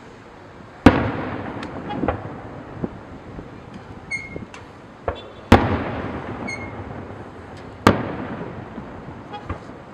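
Fireworks shells bursting overhead: three loud booms with long rolling echoes, about a second, five and a half and eight seconds in, and smaller pops and crackles between them. A short high toot sounds twice.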